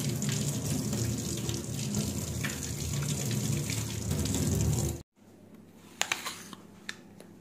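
Kitchen tap running, water splashing over an apple held under the stream and into the sink, cutting off sharply about five seconds in. Then a few crisp crunches of a bite into the raw apple.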